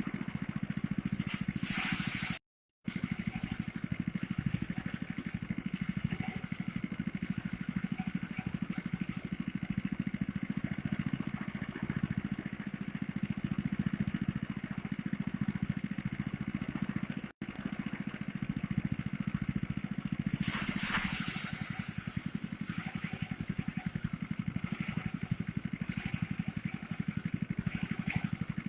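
Small engine of a motorized rice thresher (erek) running steadily, with a fast pulsing hum. Twice a short hissing rush rises over it, about a second and a half in and again about twenty seconds in. The sound drops out for a moment twice.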